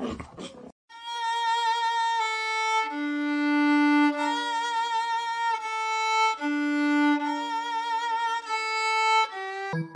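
Background music: a violin playing a slow melody with vibrato on the longer notes, coming in about a second in and ending in a short falling run. A brief burst of noise left over from the previous clip comes just before it.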